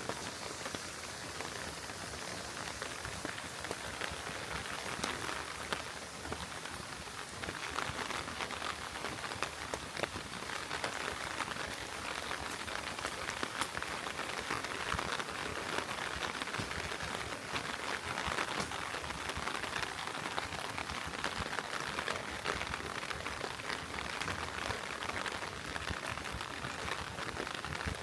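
Heavy rain falling on the street, a steady hiss with a dense patter of individual drops, growing a little louder about seven seconds in.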